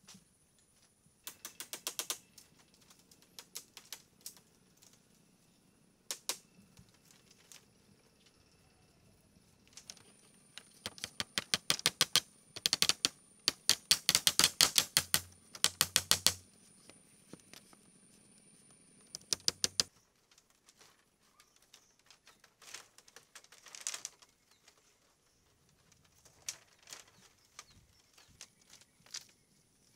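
Bursts of rapid, sharp taps or clicks, a few to several a second, loudest in a long run about halfway through, with quieter clusters before and after.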